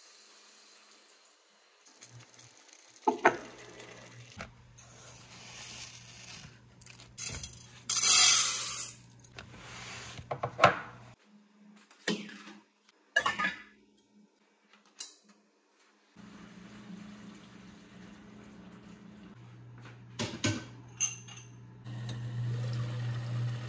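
Dishes, pans and cutlery clinking and knocking as they are handled, a few separate strikes at a time. A short loud hissing rush comes about eight seconds in, and a low steady hum sets in past the middle.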